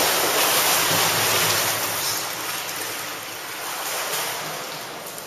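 Water splashing from a swimmer's arm strokes and kicks in a pool, as a steady wash of noise that is loudest at first and fades gradually toward the end.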